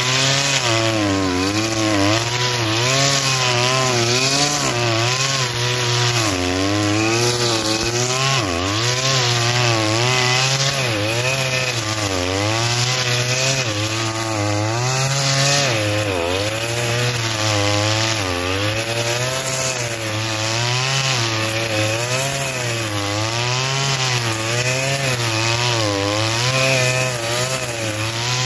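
Oleo-Mac BC 530 T brushcutter's two-stroke engine running at high revs while cutting tall dry grass. Its pitch wavers up and down every second or two as the cutting head takes the load of the grass.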